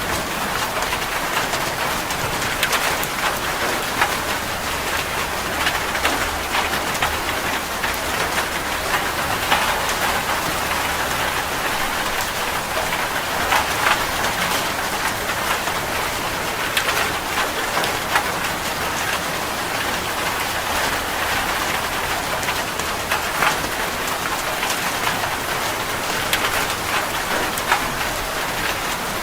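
Heavy rain falling steadily on a metal roof, with many sharp individual drop hits over a dense, even wash.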